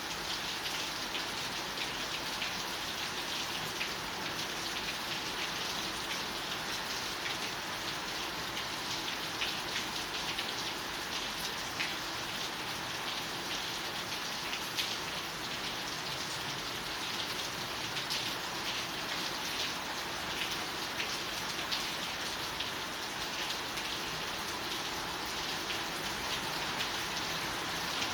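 Steady rain: an even hiss with many small, sharp ticks scattered throughout.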